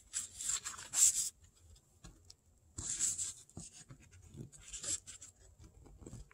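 A fingernail rubbing and creasing along the scored, folded edge of a paper diamond-painting canvas: a few short, quiet rustling strokes with pauses between them.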